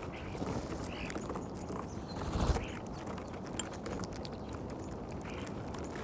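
European starlings feeding on seed and peanuts in snow close to the microphone: scattered light pecking taps and rustles over a steady outdoor hiss, with a louder low whoosh about two and a half seconds in.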